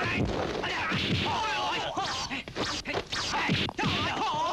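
Dubbed kung-fu film fight sound effects: a rapid series of punch and slap hits, mixed with the fighters' short yells and grunts.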